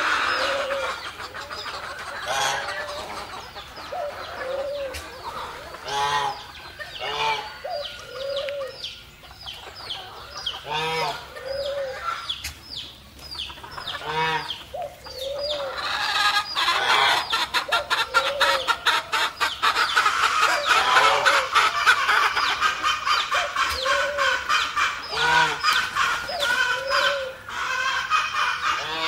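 Chickens clucking, many hens at once, with short repeated calls; the clucking grows denser and louder past the middle.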